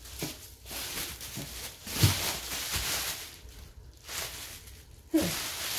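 Plastic bubble wrap rustling and crinkling as it is pulled off a hardcover book, with a thump about two seconds in.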